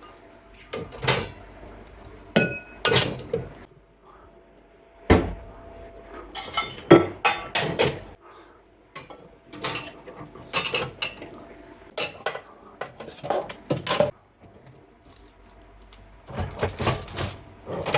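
Cutlery and dishes clinking and clattering as they are loaded into a dishwasher's racks and cutlery basket, in irregular bursts of clatter, some with a short metallic ring.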